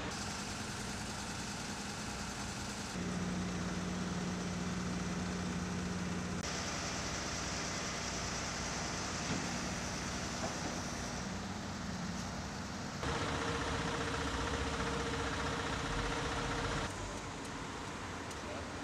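Street traffic: vehicle engines running and idling with a steady hum. The mix changes abruptly a few times.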